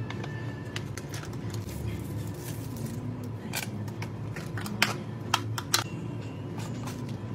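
Close handling sounds of a drink being made in a plastic cup: a pouch drink poured over ice, then a plastic straw unwrapped and handled, making small clicks and crinkles with a few sharp clicks about five seconds in, over a low steady hum.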